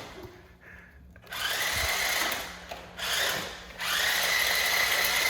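A toy remote-control car's small electric motor whirring in three short bursts, each starting with a rising whine that then holds steady.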